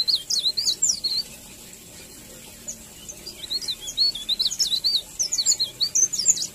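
A small songbird twittering: quick, high, wavering chirps strung together in rapid runs. A short run comes in the first second, and a longer one starts about three and a half seconds in.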